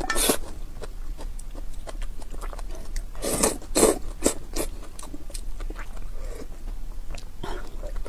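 Noodles and broth being slurped from a ladle, with a slurp just after the start and three in quick succession about three and a half seconds in, between small wet chewing and lip-smacking clicks.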